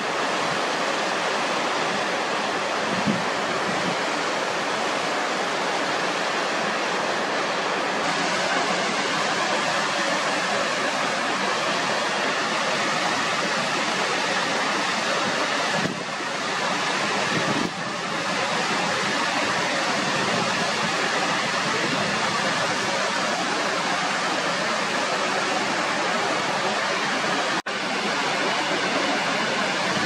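Steady rush of water cascading down a wide, smooth rock face: an even, full hiss of falling and sliding water, broken by a brief dropout near the end.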